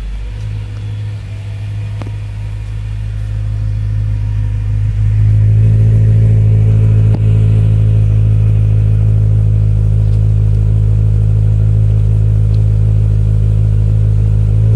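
BMW M3's 4.0-litre V8 idling steadily through an Akrapovič exhaust, just after being started. The deep, even note holds its pitch throughout and grows louder about five seconds in.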